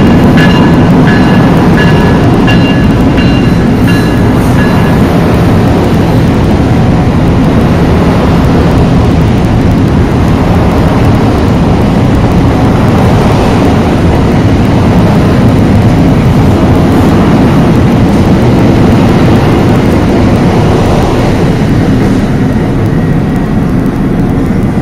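NJ Transit multilevel commuter train running through the station at speed behind an ALP-46A electric locomotive: a loud, steady rumble of wheels on rail as the coaches pass. The locomotive's electronic bell rings repeatedly, a little under a second apart, over the first five seconds. The rumble eases slightly near the end as the cab car goes by.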